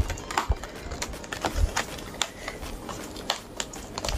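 Fingers working the cardboard of a Pokémon booster box, prying at its top flap: a string of irregular small clicks and scrapes on the card, with a few soft thumps.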